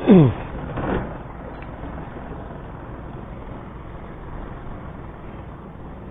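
Steady wind and water noise on an open boat. It opens with a short, loud sound that falls in pitch, and a smaller burst follows about a second in.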